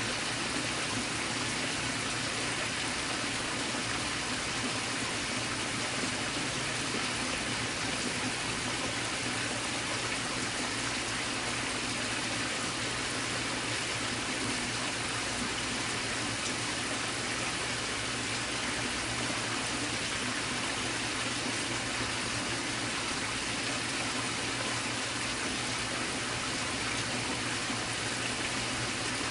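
A steady, even rushing noise that does not change, with no distinct knocks or calls in it.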